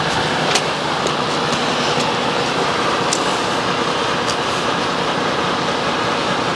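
Steady noise of a Mercedes-Benz truck being hauled slowly by rope across asphalt, with a few faint clicks.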